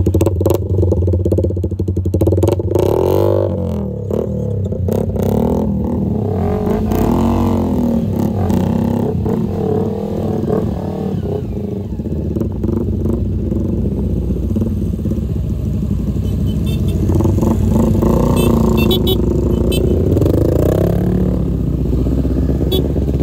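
Motorcycle engine running under way, its revs rising and falling several times, with scattered clicks and knocks over it.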